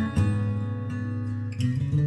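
Background acoustic guitar music, with a new chord plucked just after the start and another about a second and a half in.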